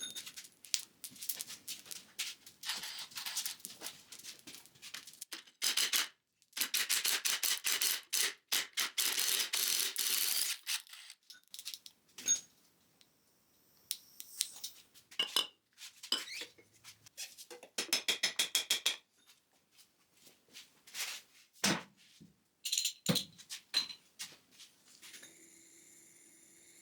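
Metal tools and parts clanking and clicking in a workshop, with two long stretches of rapid metallic rattling and quiet gaps in between.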